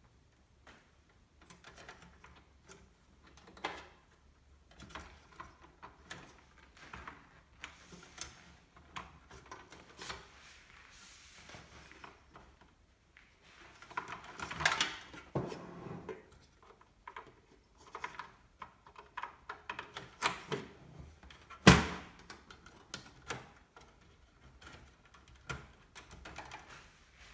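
Computer parts and case being handled and fitted together by hand: scattered clicks, taps and rustling, with a sharp knock about 22 seconds in.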